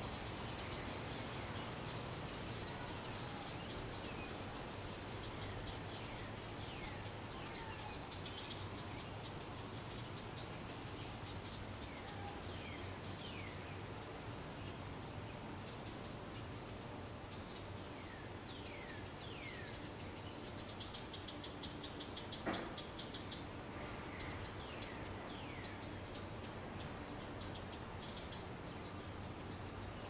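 Outdoor insect chorus of rapid high-pitched chirping pulses, with many short falling whistle notes repeated throughout. A single sharp knock sounds about 22 seconds in.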